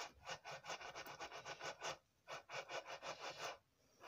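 Brisk back-and-forth rubbing strokes, about five a second, in two runs with a short break near the middle, stopping about three and a half seconds in.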